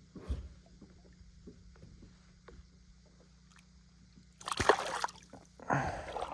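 Light knocks and clicks on a kayak, then two short bursts of water splashing and sloshing about four and a half and six seconds in.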